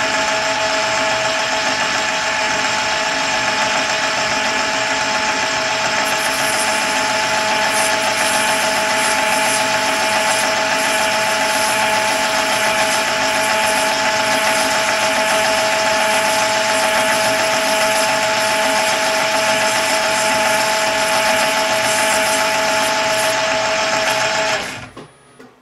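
Metal lathe running steadily with a constant whine while turning a brass crown-wheel blank to size. It is switched off about 25 seconds in and dies away within a second.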